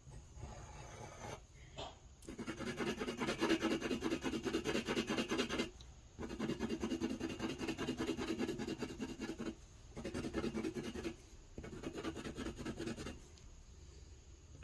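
Soft white Prismacolor pencil scribbling on paper in rapid back-and-forth shading strokes. The scratching comes in four stretches with short pauses between, starting about two seconds in.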